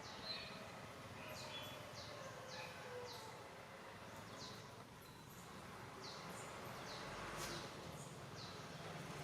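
A small bird chirping: a string of short, high calls, each falling in pitch, about one a second, over a faint steady background.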